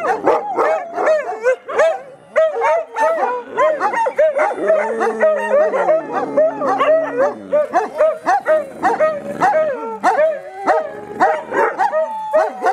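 Several dogs howling together in a chorus: many short, wavering, yipping cries overlapping one another, with a longer, deeper howl that sinks in pitch about midway.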